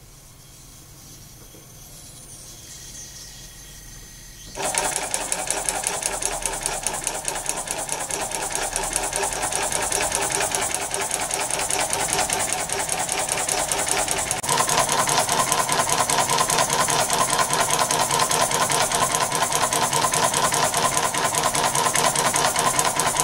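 Opened-up cheap 12 V tire inflator air compressor (motor, gears and piston) running on a bench power supply: after a faint rising sound, a loud, fast, even mechanical clatter starts abruptly about four and a half seconds in, gets louder about fourteen seconds in, and stops near the end.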